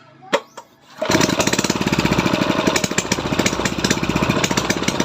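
A small engine starts abruptly about a second in and runs loud with a fast, even pulsing beat, after a sharp click just before.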